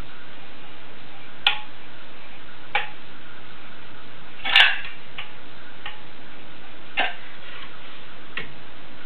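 Manual caulking gun squeezed while laying a bead of silicone caulk: about eight sharp trigger clicks at uneven gaps, the loudest about halfway through.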